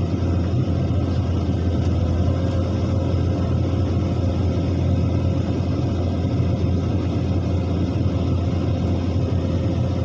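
Heavy diesel construction machinery running steadily with a deep, constant low rumble and no distinct knocks or changes.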